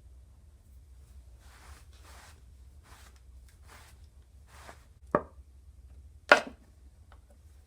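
Two sharp knocks on wood about a second apart, the second louder, among quieter brushing and scraping sounds.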